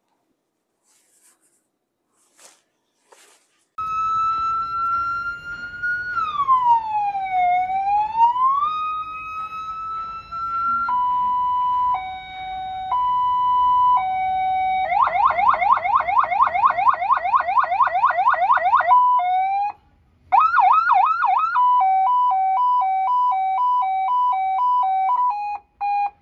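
Electronic siren of a tow truck's LED warning light bar being tested through its tones. After a few quiet seconds with faint clicks, it gives a slow wail that falls and rises, then a two-tone hi-lo alternation, then a fast yelp warble, then short quick sweeps, and the hi-lo tone again.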